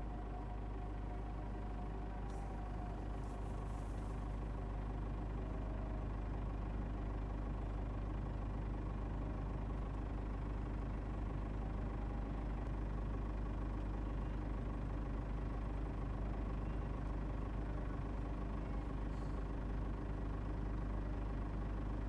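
Vehicle engine running steadily, heard from inside the cab.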